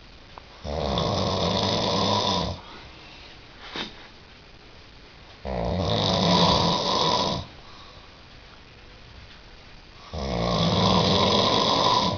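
A person snoring loudly: three long snores, each lasting about two seconds, coming about every four and a half seconds with quiet breathing gaps between them.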